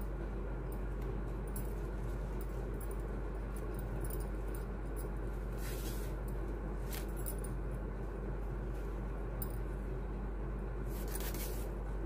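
Steady low hum of background noise, with a few faint rustles and light clicks as craft materials such as ribbon and bangles are handled.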